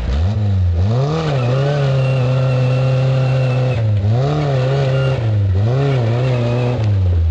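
Off-road 4x4's engine revving. It climbs about a second in and holds steady revs for a couple of seconds, then drops and picks up again several times before falling off near the end.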